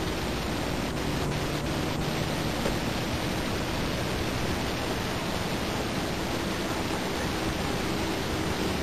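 A steady, even hiss with no distinct sound in it, and a few faint ticks about a second in.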